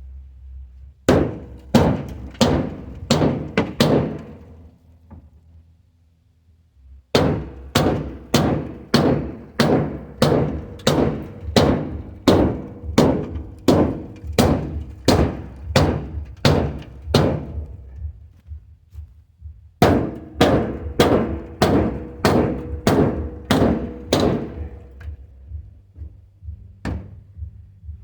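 Sledgehammer blows on the steel cab corner of a 1978 Ford F-350, beating a crushed-in panel back out: three runs of hard metal strikes about two a second, each with a short ring, the middle run the longest.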